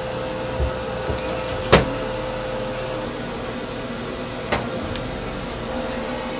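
Steady machine hum of a restaurant kitchen, with a constant mid-pitched tone, broken by a sharp clink of kitchenware a little under two seconds in and a lighter one past four seconds.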